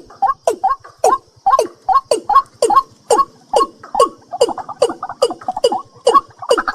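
A night bird calling in a fast, even series of short notes, about four a second, each a sharp click with a quick downward-sliding tone.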